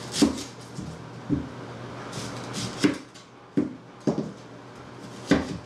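Chef's knife cutting through an onion and knocking against a plastic cutting board: about six sharp, irregular knocks, the loudest near the end.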